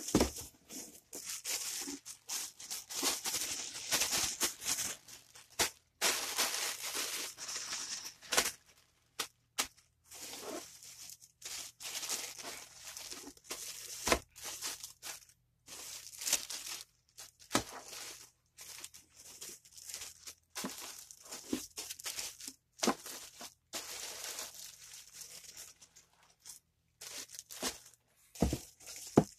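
Thin plastic polybags and the plastic packets of boxers crinkling and rustling as they are handled, in irregular bursts with short pauses, and a few sharp taps as packets are set down.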